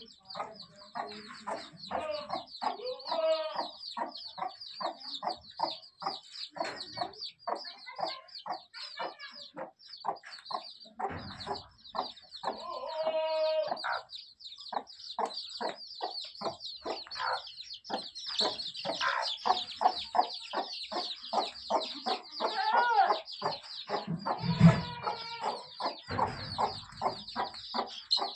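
Kadaknath chicks peeping almost without pause in quick, high-pitched cheeps, while the hen clucks among them now and then. A dull low thump comes near the end.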